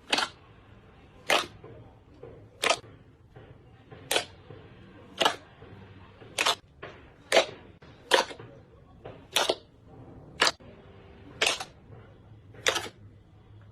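Slime being pressed and poked, giving sharp, crisp pops about once a second, a dozen in all.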